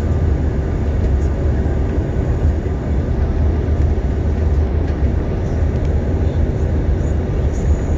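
Airliner cabin noise on the approach to landing: a steady engine drone and airflow rush with a deep, constant low rumble.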